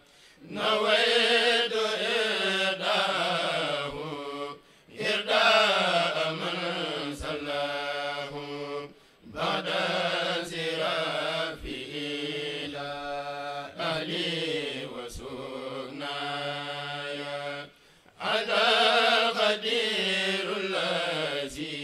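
Men of a kourel chanting a Mouride khassida, an Arabic religious poem, unaccompanied by instruments. The voices hold long, slowly bending phrases, broken by short pauses about three times.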